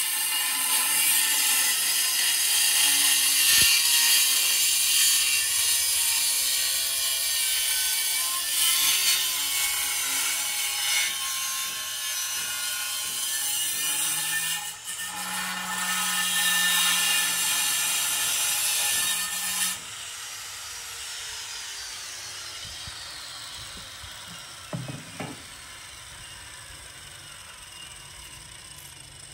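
Angle grinder cutting a ceramic tile: a steady high whine with grinding noise for about twenty seconds, dipping briefly about fifteen seconds in. The cut then ends and the whine falls slowly in pitch as the disc spins down, with a single knock near the end.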